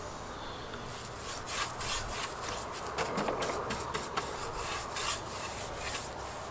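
Paintbrush bristles stroking undercoat onto a wooden gate in a run of quick, irregular brushing strokes.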